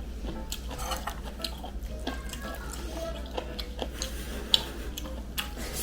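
Scattered light clicks and taps of spoons and chopsticks against dishes while eating, over a steady low hum.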